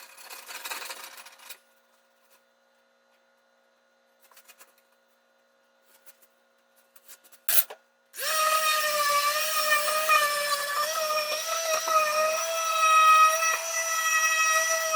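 Brief scraping or rubbing, then silence. About eight seconds in, an electric power tool starts and runs with a steady high whine that wavers slightly in pitch.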